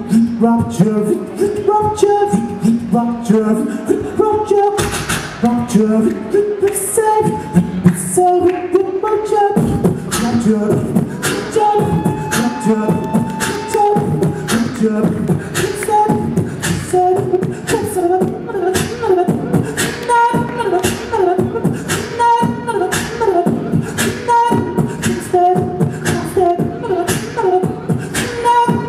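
Live beatboxing into a handheld microphone: a steady beat of mouth-made kick and snare sounds, layered with a sung bass line and a higher pitched melody.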